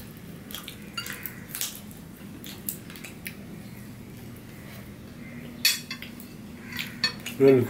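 Fingers scraping and tapping on ceramic dinner plates as the last of the food is gathered up, making scattered light clicks and clinks that grow busier and louder near the end.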